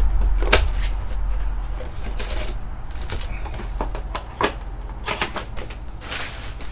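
Cardboard trading-card blaster box being opened and its foil packs pulled out and set down on the table: a run of sharp clicks and taps with a few short rustles.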